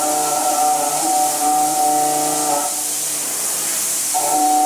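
TRIMILL VU 3019 5-axis gantry machining centre milling a metal block: a steady whine of several tones from the cutting over a constant hiss. About two-thirds of the way through, the whine drops out for about a second and a half, then comes back.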